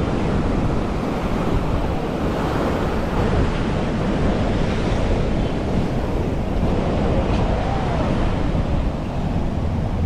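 Ocean surf washing on the beach in a steady rush, with wind buffeting the microphone.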